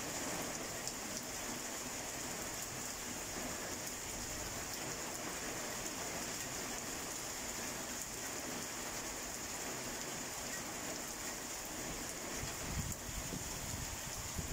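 Heavy rain falling steadily on paving and foliage, an even hiss with the patter of drops. A low rumble comes in near the end.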